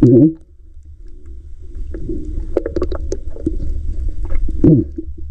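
Water sloshing and gurgling close to the microphone over a steady low rumble, with a loud gurgling surge right at the start and another near the end, and small splashes and clicks in between.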